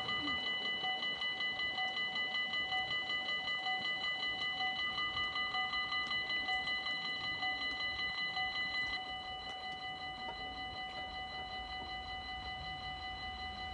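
Dutch level-crossing warning bells ringing in a rapid, steady rhythm while the barriers lower. About nine seconds in, once the barriers are down, the ringing drops to a quieter level.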